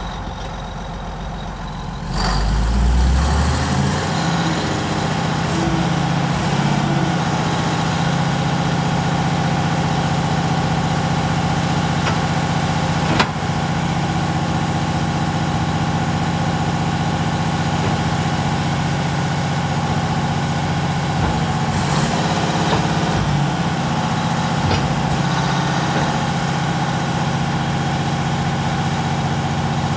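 Komatsu D155AX-6 crawler dozer's diesel engine running; about two seconds in it revs up from a lower speed and then holds steady at the higher speed. A single sharp click is heard near the middle.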